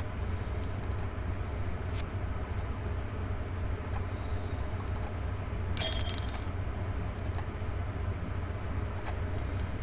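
Faint computer mouse clicks scattered over a steady low hum, with one short, bright metallic clink about six seconds in.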